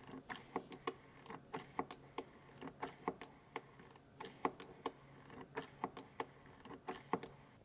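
Small hand-operated gear oil pump on a quart bottle being worked stroke after stroke, clicking about three times a second as it pushes gear oil through a hose into the rear differential.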